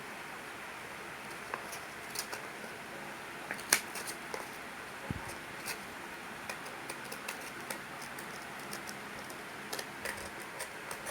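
Scattered light clicks and taps of hand work with sandpaper and tools, over a faint steady hiss, with one sharper click about four seconds in.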